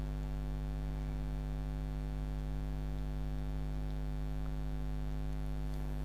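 A steady electrical mains hum, one unchanging low buzzing tone with its overtones.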